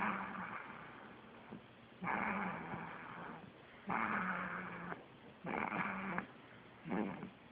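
A sleeping baby snoring, lion-like: about five snores, each a noisy breath over a low hum, coming every one and a half to two seconds, the later ones shorter.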